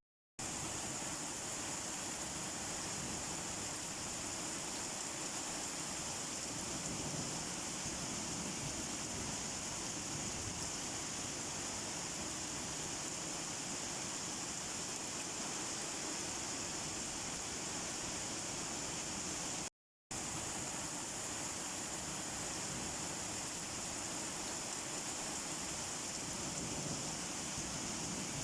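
Steady rain falling, an even hiss with no separate drops standing out. The sound cuts out completely for a split second twice, just after the start and about twenty seconds in.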